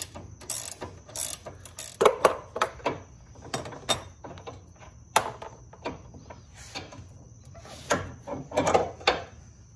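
Ratcheting wrench clicking and metal parts clinking as the nut on the stock front sway-bar end link is backed off and the link is worked off the control arm. The clicks and knocks come unevenly, with the loudest near two seconds in and again near the end.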